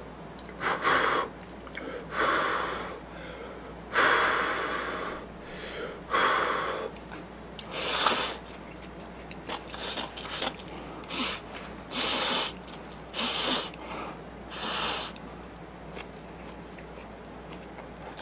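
A person slurping ramen noodles in a series of about a dozen short, noisy slurps, one longer than the rest about four seconds in, with chewing between.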